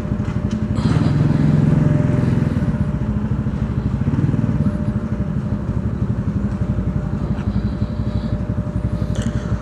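Motorcycle engine running as the bike pulls away and rides slowly, its sound swelling over the first second and then holding at a steady low throb.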